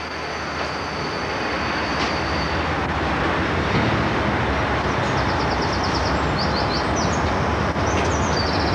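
Electric multiple-unit train standing at a platform, its equipment giving a steady hum and hiss. From about five seconds in, a rapid high-pitched twittering comes in short runs.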